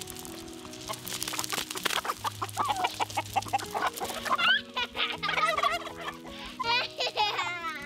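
A flock of chickens clucking and squawking as they peck at vegetable scraps on gravel, with many short pecking clicks in the first half and louder, more frequent calls from about halfway. Soft background music with held notes plays underneath.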